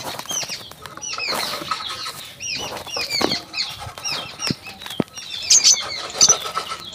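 Many quick, high bird chirps repeating over and over, mixed with short scratchy scraping of a small metal trowel cutting a groove through sand.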